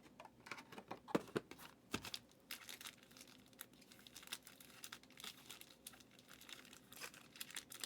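Faint crinkling and tearing of trading card packaging, with scattered small clicks and crackles of handling.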